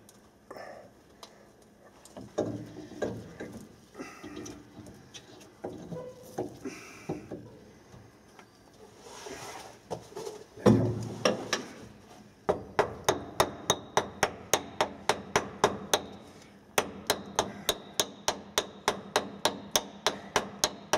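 Metal clunks and knocks as a round cover plate goes onto a Sentinel steam wagon engine, with one heavy knock about ten seconds in. Then even metallic clicking, about three a second, from a ratchet wrench run on the cover's nuts, with one short break.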